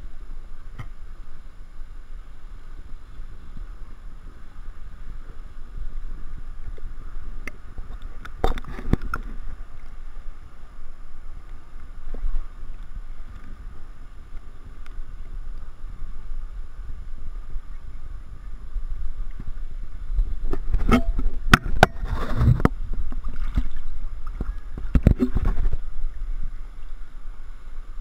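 Pool water lapping and sloshing against an action camera's waterproof housing held at the surface, a steady low rumble. Clusters of splashes and knocks come about eight seconds in and again later, from about twenty to twenty-six seconds.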